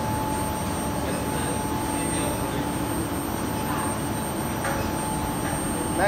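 Induction melting furnace running at full power (75 kW) with copper melting in its crucible: a steady roar with a constant high tone over it.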